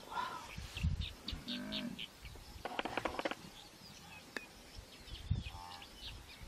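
Faint animal calls amid a spotted hyena pack's attack on a Cape buffalo: a few short pitched cries and some brief high chirps scattered through, with quiet stretches between.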